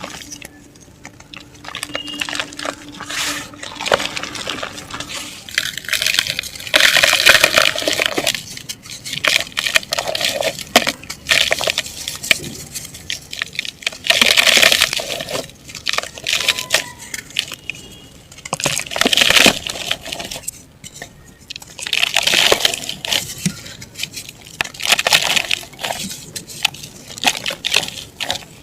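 Dried mud and black dirt crumbling, in repeated gritty crackling bursts a few seconds apart, each full of tiny cracks and grains falling. The loudest bursts come about a quarter and halfway through.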